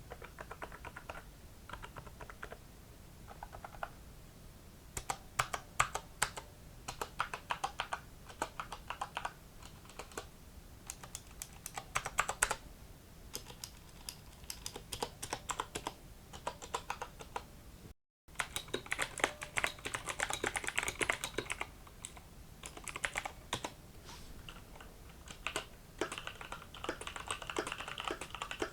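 Typing in bursts on Corsair K95 mechanical keyboards with clicky blue switches: quick runs of sharp key clicks. A brief dropout comes about two-thirds through, after which the typing is brighter and busier.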